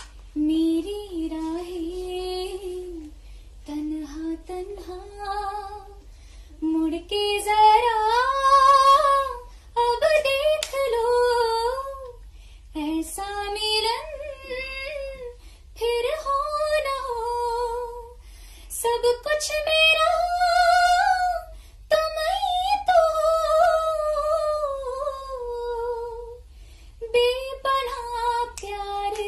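A woman singing solo with no accompaniment: a slow melody in phrases a few seconds long, with wavering vibrato and ornamental turns, broken by short pauses for breath.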